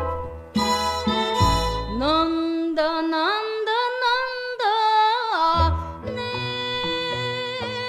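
Music: a woman singing a Japanese song with instrumental accompaniment. About two seconds in she holds long notes and slides up and down between them, then the accompaniment carries on alone.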